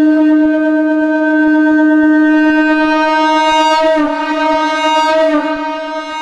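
Shankh (blown conch shell) sounding one long held note on D#, rich in overtones. It grows brighter and a little unsteady past the middle, then eases off near the end.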